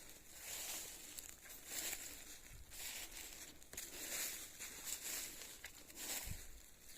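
Footsteps rustling and crunching through dry forest leaf litter and undergrowth, about one step a second.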